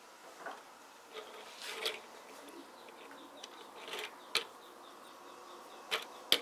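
Fingers handling a plastic Sluban brick-built police van and minifigure: scattered small plastic clicks and taps, the sharpest two close together near the end.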